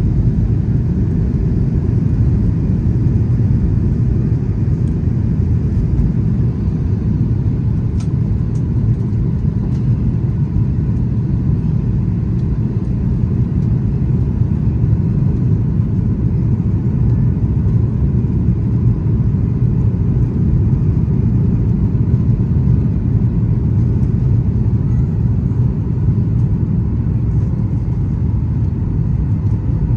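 Cabin noise inside a Boeing 737 MAX 8 during the takeoff roll and initial climb: a steady low rumble of the CFM LEAP-1B engines at takeoff thrust and rushing air, with a faint steady whine above it.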